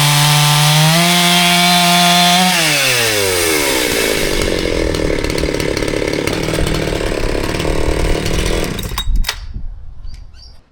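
Husqvarna two-stroke chainsaw held at high revs, then the revs fall sharply about two and a half seconds in and it drops to a lower, rougher idle. A few knocks near the end as the sound dies away.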